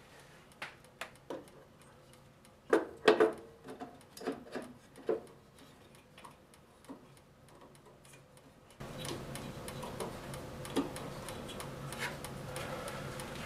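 Scattered light clicks and knocks of a metal band saw wheel and blade being handled and pushed onto the saw's lower wheel shaft by hand, with the loudest cluster about three seconds in.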